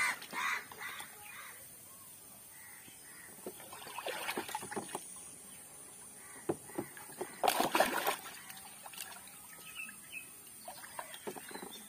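Water splashing in a plastic tub as a small child moves and plays in it, in uneven bursts with the loudest splashes about four and eight seconds in.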